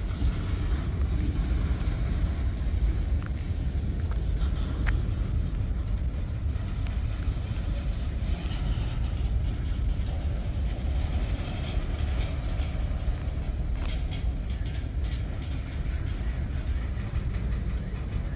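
Freight cars of a manifest train, boxcars and covered hoppers, rolling past: a steady low rumble of steel wheels on rail. A few light clicks come through, most of them near the end.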